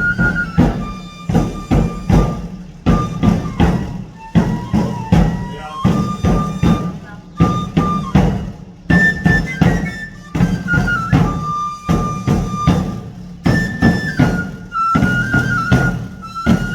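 Traditional pipe-and-tabor music: a high flute melody of held and stepping notes over a fast, steady run of drum strokes, continuous throughout.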